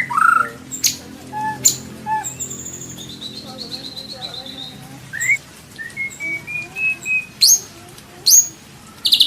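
White-rumped shama (murai batu) singing a varied song of separate whistles, chirps and sharp rising notes, with short pauses between phrases.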